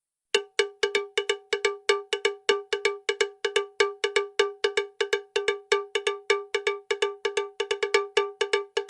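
A metal bell struck over and over, about four to five quick strikes a second in a slightly uneven rhythm, each a short ringing note at the same pitch, starting about a third of a second in.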